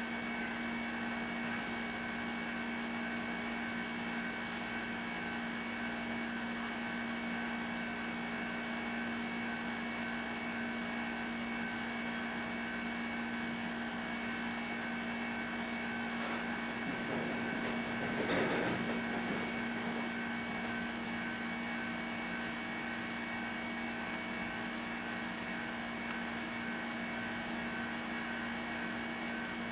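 Steady electrical hum made of several constant tones over a faint hiss, with a brief louder noisy swell about two-thirds of the way through.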